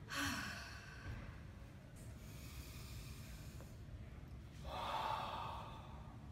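Slow, deep breathing: three long breaths, drawn in and let out audibly.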